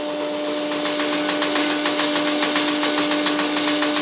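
Angle grinder running with a steady whine, spinning a disc of four free-swinging hammer heads that clatter rapidly against a copper block, the strikes growing stronger from about a second in. The speed has been set so the hammers have time to swing back between blows and land on the copper.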